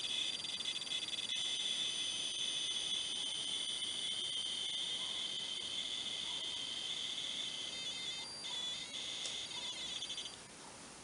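Commodore 64 tape data played out as sound by a Tapuino SD-card tape emulator in a C1530 Datasette case while a .TAP file loads: a steady, high-pitched squeal. Near the end it breaks into a choppier pattern and then cuts off suddenly.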